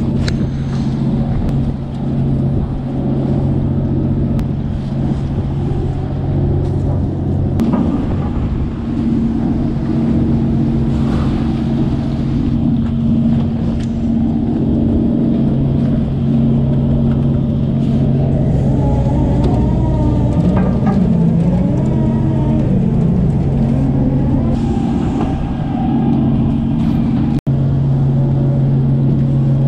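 Steady low hum of a pollock trawler's engine and deck hydraulics while the trawl net is hauled back aboard, with the pitch wavering for a few seconds midway. The sound briefly cuts out near the end.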